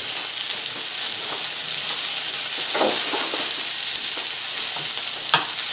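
Wagyu steak frying in hot oil and rendered fat in a pan, a steady sizzle, with brief knocks about three seconds in and near the end.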